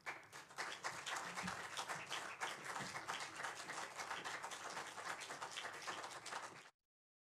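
Audience applauding, a dense patter of many hand claps that cuts off suddenly near the end.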